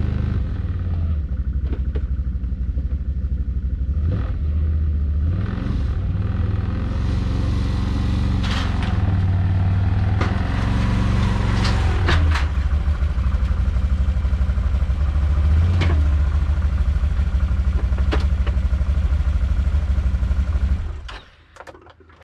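Can-Am X mr ATV engine running and revving in short bursts as the quad is driven up onto a small flatbed trailer, with a few sharp knocks along the way. The engine is shut off near the end.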